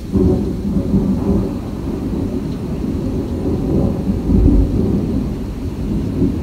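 Thunder rumbling, starting suddenly and rolling on low with uneven swells, with rain falling.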